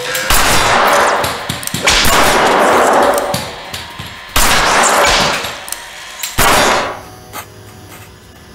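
Four revolver shots about two seconds apart. Each starts sharply and dies away over a second or more in a long echo.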